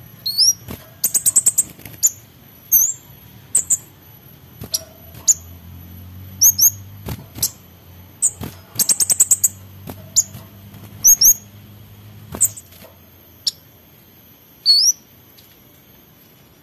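Male orange-headed thrush singing in bursts of sharp, high whistled notes and rapid rattling trills, with short gaps between phrases. The song thins to a few single notes near the end.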